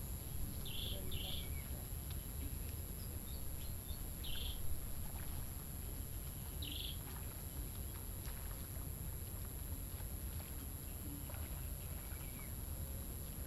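Outdoor ambience: a steady low rumble, like wind on the microphone, under a steady high whine, with a few short bird chirps in the first seven seconds.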